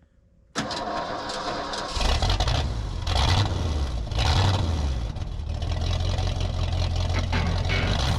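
A heavy machine's engine comes in suddenly about half a second in, then runs with a strong low drone, revving up twice before holding steady.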